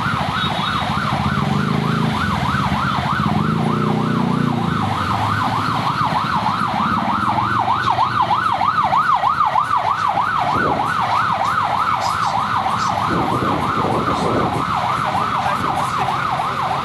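An electronic siren yelping, its pitch sweeping up and down rapidly and evenly, about four times a second, over low street traffic rumble.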